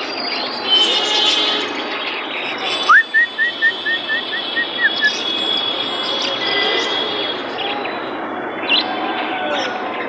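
A flock of caged budgerigars chirping and chattering over steady market noise. About three seconds in comes a quick run of about eight short, same-pitched chirps.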